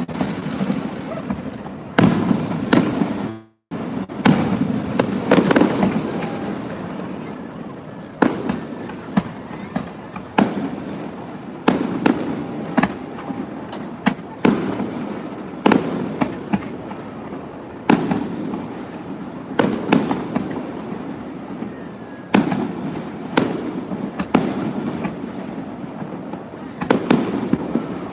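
Aerial fireworks display: a steady barrage of shell bursts, a sharp bang every second or so, each trailing off in an echo. The sound drops out for a moment about three and a half seconds in.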